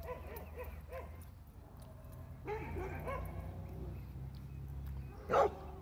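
Dogs barking and yipping faintly, with one louder, sharper bark about five seconds in.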